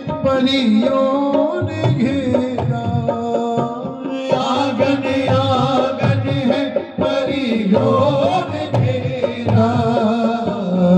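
Male singer performing a devotional Krishna bhajan through a microphone and PA, the melody gliding and held over steady drum strokes and instrumental accompaniment.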